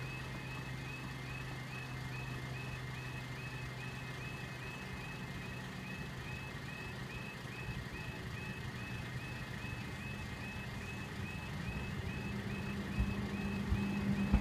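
Level crossing audible warning alarm sounding a short repeated chirping tone, about three a second, over a low steady hum. In the last couple of seconds the rumble of an approaching Class 377 electric train grows louder.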